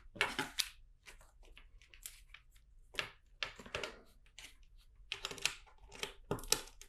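Plastic LEGO monorail track pieces and bricks being handled and clicked together: irregular small clicks and rattles in clusters, busiest in the last two seconds.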